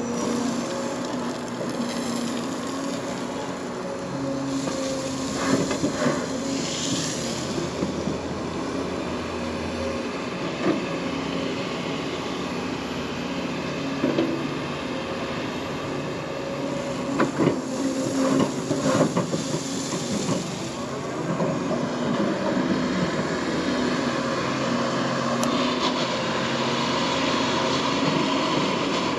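Hyundai crawler excavator's Cummins diesel engine running steadily under load with its hydraulics working as it digs and swings, while gravel pours from the bucket and stones clatter in several short bursts, most of them about two-thirds of the way through.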